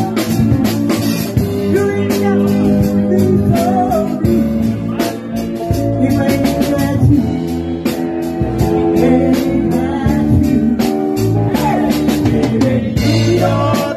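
Live amateur band playing through amplifiers: electric guitars, bass and keyboard, with a voice singing into a microphone.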